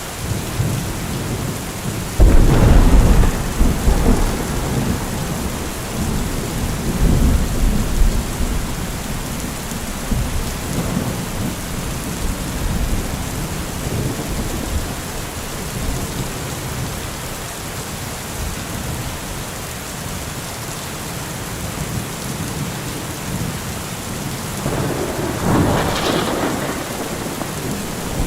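Steady rain with thunder: a loud thunderclap about two seconds in rumbles on for several seconds, then the rain goes on alone until another rumble of thunder swells near the end.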